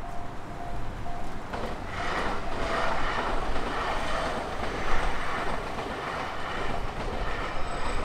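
A railway crossing bell dinging about two to three times a second, then drowned out about a second and a half in by a train running past with a steady rumble and rush.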